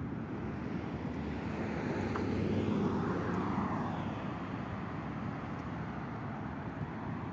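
Road traffic noise, a steady rush that swells as a vehicle passes about three seconds in and then eases off.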